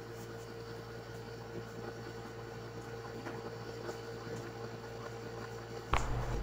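Steady low hum of the room, then about six seconds in a single sudden, short crack-and-thump as the chiropractor thrusts the neck in a cervical adjustment.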